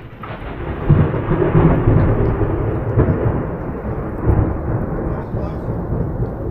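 Close thunderclap: a loud low rumble that builds sharply about a second in and rolls on for several seconds, slowly fading.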